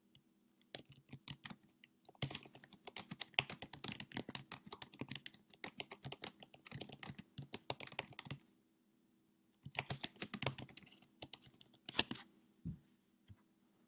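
Typing on a laptop keyboard: a run of quick key clicks lasting about six seconds, a pause, then a shorter burst and a few scattered taps near the end.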